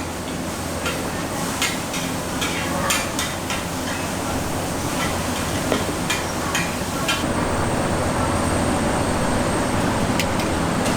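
A metal spatula knocking and scraping against a wok while fried rice is stir-fried, in a string of irregular sharp clinks over the first seven seconds. A steady background din runs underneath and grows a little louder in the later part.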